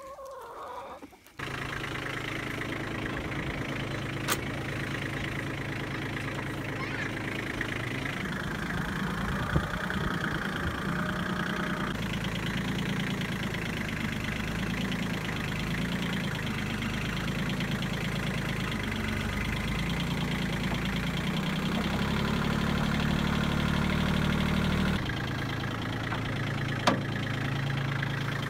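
A compact tractor's engine running, heard from the operator's seat. Its note shifts about a third of the way in and drops near the end, with a few sharp metallic knocks.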